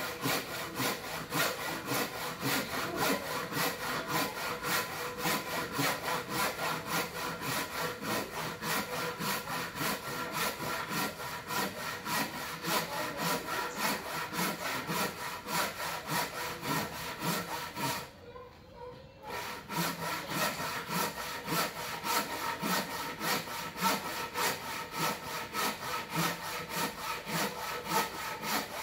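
Hand saw cross-cutting a thick wooden beam: steady, evenly spaced saw strokes, about two to three a second, with a pause of about a second roughly two-thirds of the way through.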